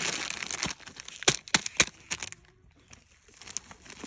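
A ream of copy paper and its paper wrapper being handled and pulled apart, rustling and crinkling, with several sharp crackles about a second in and a short lull before softer rustling near the end.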